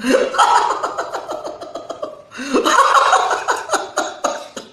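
A man's exaggerated, mock sobbing wail in two long, rapidly pulsing bursts, the second starting about halfway through.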